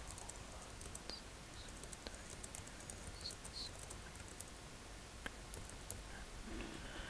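Soft typing on a computer keyboard: scattered light key clicks at an uneven pace.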